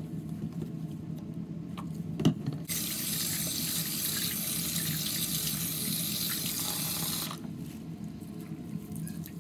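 Bathroom sink tap running while wet hair bundles are rinsed under it by hand. There is a sharp knock about two seconds in, then the water goes louder and hissier for about four and a half seconds before dropping back.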